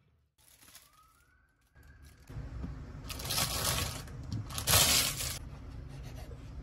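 Plastic bag of soft bread rolls rustling and crinkling in two loud bursts about a second apart.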